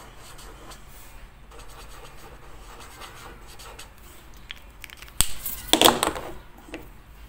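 Alcohol marker tip rubbing faintly on paper as eyes are coloured in, then a sharp click about five seconds in and a brief, loud handling rustle just before six seconds.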